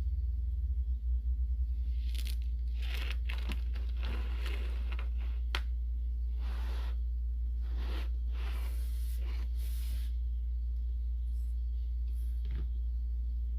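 Kinetic sand being cut: a run of separate crunching, tearing strokes, most of them in the first two-thirds, with one more near the end. A steady low hum runs underneath.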